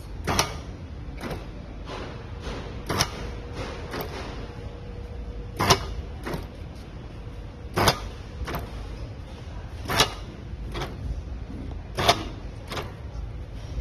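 AC laminated push-pull solenoid (SA-2502) cycling on a force test rig while lifting about 1.5 kg of hanging weights by a wire: a sharp metallic clack about every two seconds as the plunger pulls in, each followed about half a second later by a lighter click as it releases.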